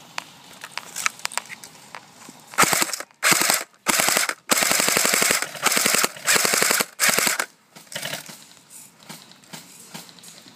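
Airsoft gun firing on full auto in six or seven rapid bursts of BB shots over about five seconds, starting about two and a half seconds in.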